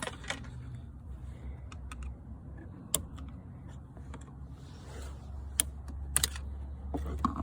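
Scattered light clicks and taps of hand tools and trim parts being worked loose inside a car during seatbelt removal, over a steady low hum. The sharpest clicks fall about three, five and a half and six seconds in.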